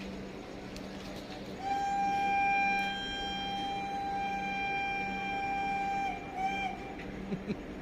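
Train horn sounding one long steady blast of about four and a half seconds, then a short second toot, over a steady low hum.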